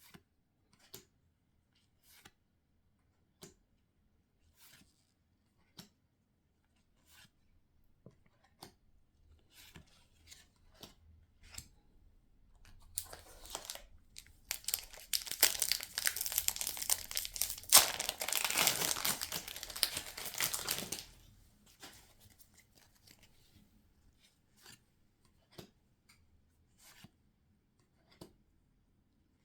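Plastic packaging of a Pokémon card booster box being torn open and crinkled for several seconds in the middle. Before and after come scattered light ticks and taps of handling.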